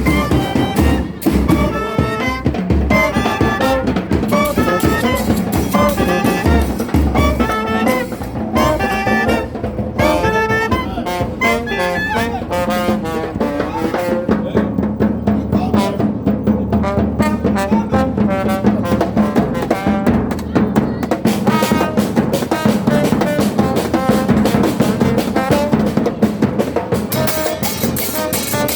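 Chirimía chocoana ensemble playing: wind instruments carry a lively melody over drums and percussion, with heavy drum hits in the first several seconds.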